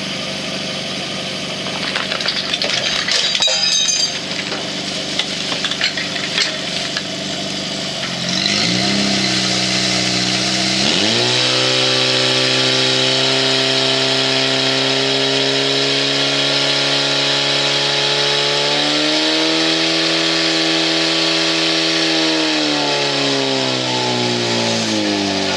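Portable fire pump engine idling, then revved up about a third of the way in and held at high revs while it pumps water through the attack hoses. Its pitch shifts again about two-thirds in and eases down near the end.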